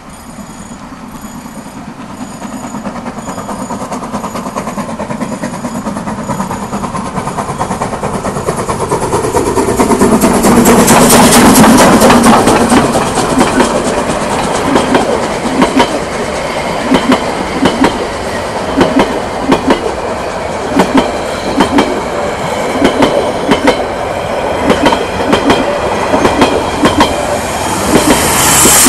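Metre-gauge steam train running in over a level crossing, getting steadily louder until the locomotive passes about eleven seconds in. After that the coaches' wheels clack in regular pairs over the rail joints, and right at the end a diesel railcar at the rear of the train passes with a loud surge. A level-crossing warning bell rings at the start.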